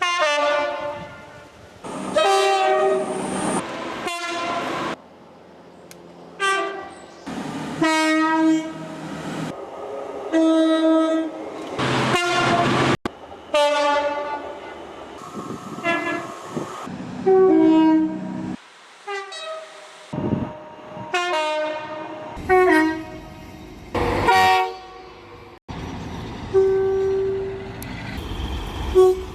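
Train horns sounded again and again by a series of British diesel locomotives and multiple units. Many are two-tone blasts alternating a high and a low note, some sliding down in pitch as the train passes, and the clips are joined with abrupt cuts.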